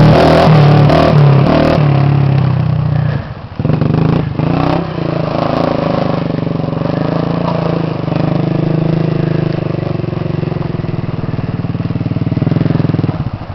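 A Honda 250EX quad's single-cylinder four-stroke engine revving hard under a wheelie, then easing off about three seconds in. It picks up again and runs on at a wavering throttle as the quad rides around, dropping off sharply just before the end.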